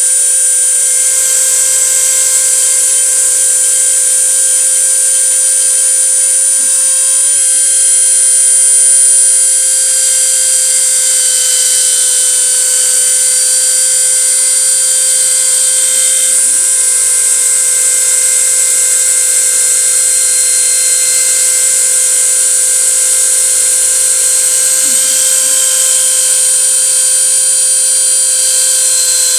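CNC router running a test cut: a steady high-pitched spindle whine, with a short dip and rise in pitch about every nine seconds.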